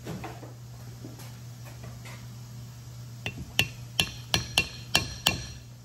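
Hammer tapping a brass punch on the rusted, stuck pad retaining pin of a 1968 Camaro's Delco Moraine four-piston disc brake caliper, to drive the pin out. Seven sharp metallic taps, each ringing briefly, about three a second, starting about three seconds in; the first is faint.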